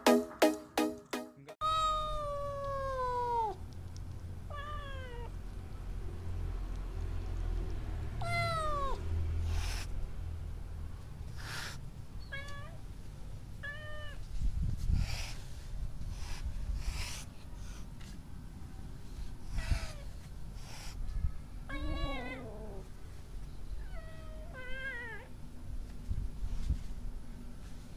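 Orange cats meowing repeatedly, each meow a downward-sliding call, with several short hisses between them. The kitten hisses defensively whenever it is approached to be touched. Electronic music plays for the first second and a half.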